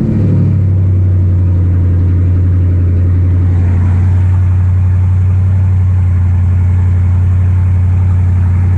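Dodge Challenger R/T's 5.7-litre HEMI V8 idling loud and steady right after a cold start. A deep, even idle settles within the first half second and holds.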